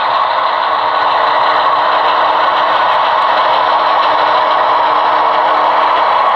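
Steady diesel engine sound from an HO-scale BNSF locomotive model, thin and with little bass, as the model rolls slowly along the track.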